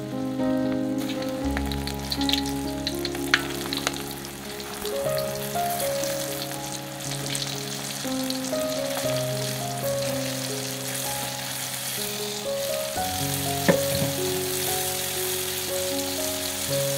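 Flour-battered shrimp frying in hot oil in a wok: a steady sizzle, with a couple of sharp pops, under background music of held melodic notes.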